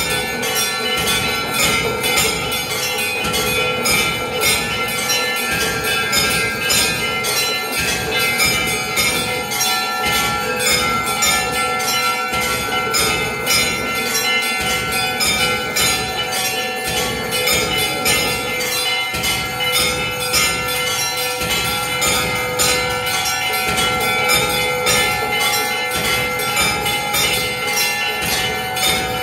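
Hindu temple bells rung fast and without pause for aarti: a dense, even run of metallic clanging strikes with a ringing tone held beneath.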